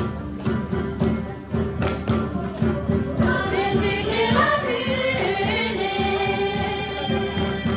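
Tibetan folk dance music with a steady beat and a held drone, and a group of voices singing a melody from about three seconds in.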